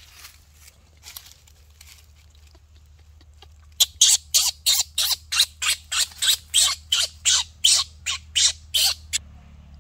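Baby macaque screeching: a fast run of about twenty short, shrill, piercing calls at almost four a second. It starts suddenly a few seconds in and breaks off shortly before the end, after some quiet rustling.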